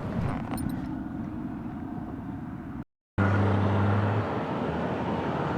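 Road and engine rumble from a moving motorcycle, with wind on the microphone. About three seconds in the sound cuts out completely for a moment, then a steady low hum holds for about a second before the rumble carries on.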